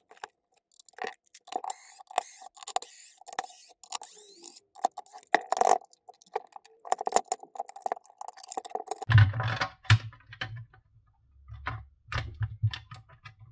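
Irregular clicks, rattles and scrapes of hands handling a screwdriver bit roll and the plastic case of a battery charger. From about nine seconds in come heavier low knocks and creaks as the charger's top plastic clamshell is pried apart.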